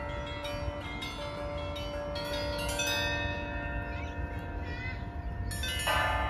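The Federation Bells, upturned harmonic bells sounded by their mechanical striking system, ringing in overlapping chord-like tones. Several bells are struck in quick succession a couple of seconds in, and a louder strike comes near the end.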